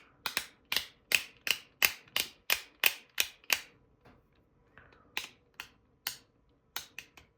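Magnetic fidget toy clicking as its parts snap together under the pull of the magnets: a quick run of about ten sharp clicks, roughly three a second, then a pause and a few scattered clicks near the end.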